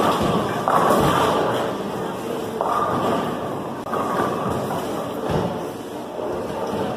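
Bowling alley din: bowling balls rolling down the lanes and pins crashing, with several sudden thuds and clatters.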